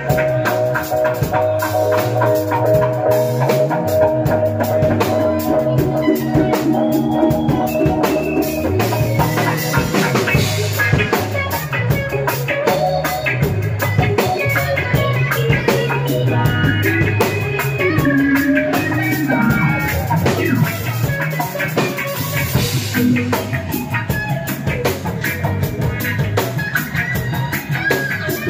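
Live reggae band playing: drum kit, electric guitar and keyboards over a steady rhythm.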